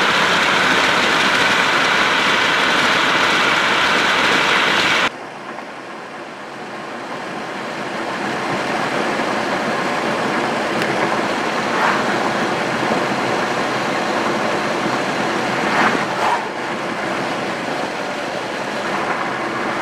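Steady vehicle noise: engine and fan hum, which cuts abruptly about five seconds in. It is followed by rumbling road and engine noise from a car driving on a highway, growing louder as it picks up speed, with a couple of faint knocks.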